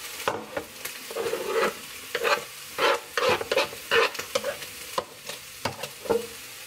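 A spoon stirring and scraping in a pan in short, irregular strokes, over the sizzle of diced vegetables sautéing in oil.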